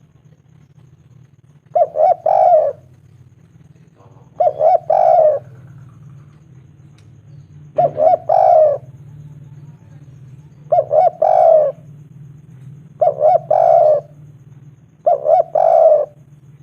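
Spotted dove cooing in six repeated phrases, one every two to three seconds, each a couple of short notes running into a longer coo: its call to females. A low steady hum runs underneath.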